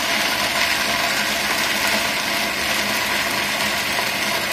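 Vitamix blender running at a steady speed, chopping dry roasted peanuts into coarse pieces.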